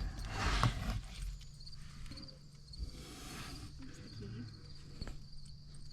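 Rustling and handling noise as the wiring is worked under the vehicle, over a faint, steady, high-pitched chirping.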